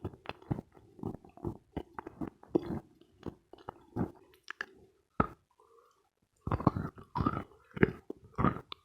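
Close-miked chewing of a piece of dense Khrapovsky eating chalk: crisp crunches at about two a second, a short pause a little past halfway, then a quicker run of crunching.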